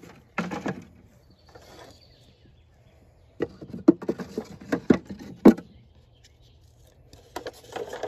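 Wooden Langstroth hive frames being shifted inside the wooden hive box, giving a run of sharp wooden clacks and knocks in the middle as the frames bump together and against the box.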